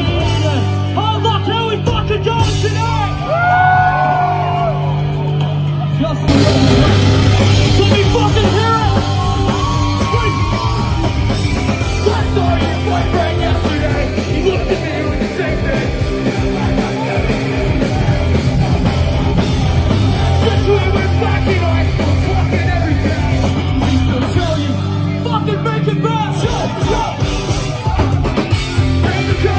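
A punk rock band plays loud live through a bar PA: electric guitars, bass and drums under shouted, sung vocals. About six seconds in, the music changes abruptly to another song.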